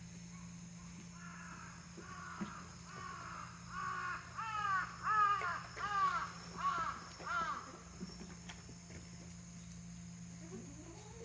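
A crow cawing: a run of about ten short harsh caws over some six seconds, growing louder and then fading.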